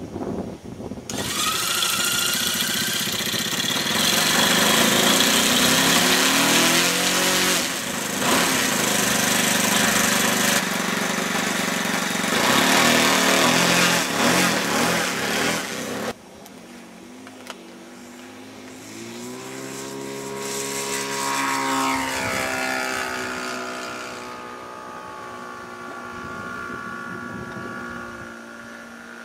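Small propeller aircraft engine running. It is loud and noisy for the first fifteen seconds or so, then drops away suddenly, and its note climbs in pitch around two-thirds of the way in before holding steady.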